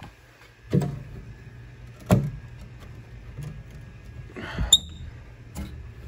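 Knocks and a short creaking scrape from hands working at an old wood-framed basement window to open it: three sharp knocks, with a brief squeak about four and a half seconds in.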